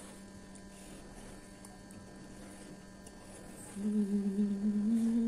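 A woman humming a long closed-mouth 'mmm' while chewing, starting a little under four seconds in and held about two seconds, its pitch stepping up slightly partway through. Before it there is only faint room noise.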